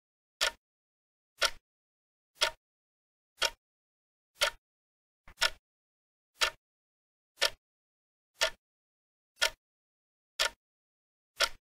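Clock-tick sound effect of a countdown timer: a sharp tick once a second, about eleven times, with silence between.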